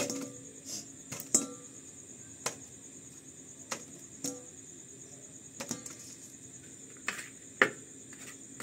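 Roasted litti dough balls picked off the embers and dropped one at a time into a steel bowl: about ten light, separate knocks at irregular intervals, the loudest a little over a second in and near the end. Crickets chirp steadily behind them.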